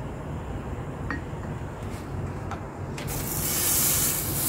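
A sauce-brushed vegetable skewer laid on a hot barbecue grill grate: a few light clicks against the metal, then about three seconds in a sizzle starts suddenly and keeps going.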